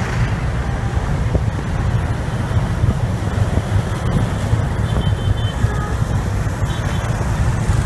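Steady, loud rumble of a moving vehicle's engine and travel noise, unbroken throughout.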